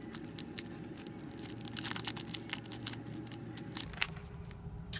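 Plastic wrapper of a Squarebar protein bar being torn open and crinkled by hand, a rapid run of sharp crackles that thins out near the end.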